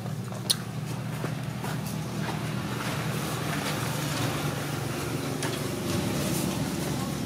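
Steady low hum of an idling engine, with a few sharp clicks over it.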